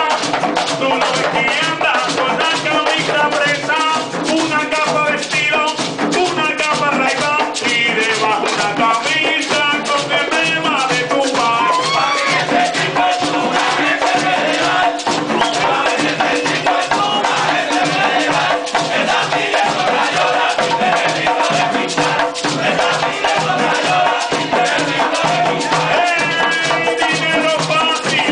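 Live Puerto Rican plena: a lead singer and group singing over a fast, steady beat of hand-struck panderos (jingled frame drums) and a scraped güiro, continuous throughout.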